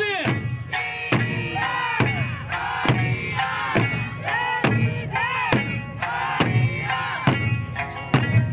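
Music: singing over a steady drum beat of about two strokes a second.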